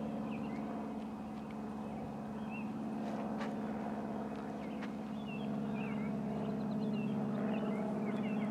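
A steady engine drone at a constant pitch, with birds chirping now and then.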